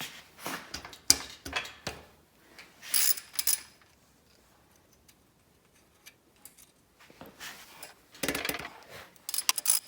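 Wrench and loose metal engine parts clinking and scraping while a VW Type 1 engine's rocker arm assembly is unbolted: a run of sharp clinks, a quiet spell, then a longer scrape and a few more clinks near the end.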